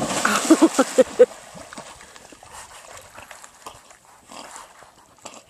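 A black Labrador retriever splashes into a pond, with a quick run of short, excited dog yips in the first second or so. After that only faint water sounds are heard as it swims out.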